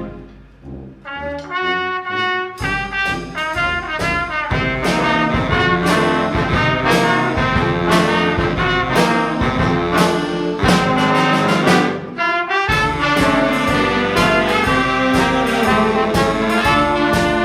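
High school brass ensemble of trumpets and trombones playing with percussion: a few held brass notes softly at first, then the full band comes in loudly about two and a half seconds in, with a brief break near twelve seconds.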